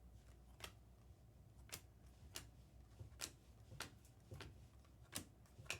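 Near silence broken by faint, irregular light clicks, about eight in all, from trading cards being handled and sorted.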